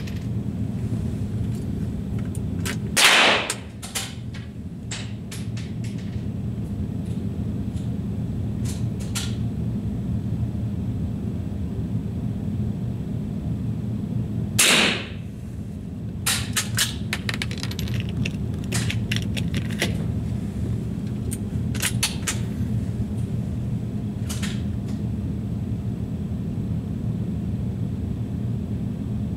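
Two rifle shots about twelve seconds apart, each a sharp crack with a short echo, over a steady low hum. Fainter sharp clicks and cracks are scattered between them.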